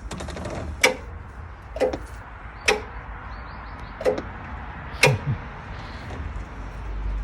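Six sharp knocks and clicks, roughly one a second, two of them close together about five seconds in. No engine is running yet, as the diesel still has to be preheated.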